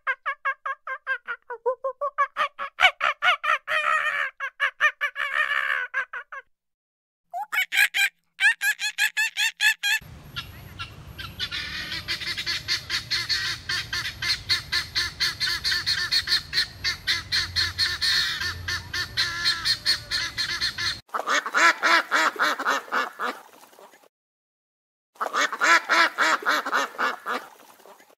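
A run of animal calls, each a fast series of short repeated notes broken by brief silences. The longest stretch, through the middle, is helmeted guineafowl cackling rapidly. Shorter runs of quick repeated calls come in the first few seconds and in the last few.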